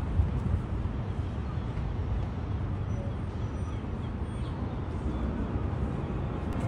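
Outdoor city ambience: a steady low rumble.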